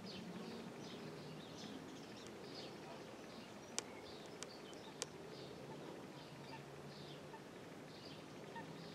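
Small birds chirping and singing, many short high notes repeating throughout, over a low steady hum. Three sharp clicks come a little before the middle.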